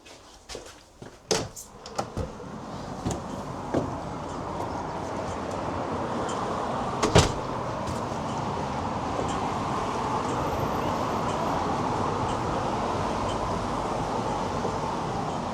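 A door handled and opened, with a string of knocks and clicks, then a steady rushing outdoor background noise that sets in about four seconds in and holds. A single sharp knock stands out about seven seconds in.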